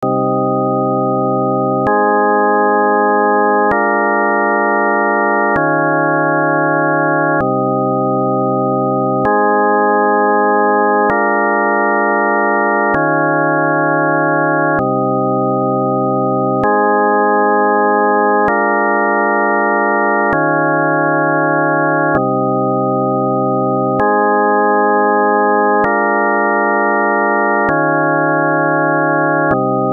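Electronic organ-like synthesizer tones playing a loop of sustained chords. Each chord is held for about two seconds and changes abruptly to the next, cycling through the same four chords over and over.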